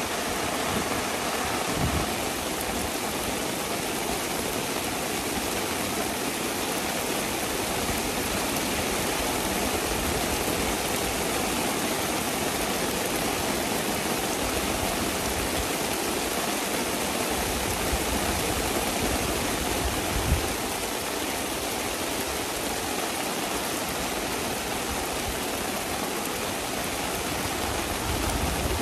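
Heavy rain falling in a steady, dense hiss, with one brief sharp tap about two-thirds of the way through.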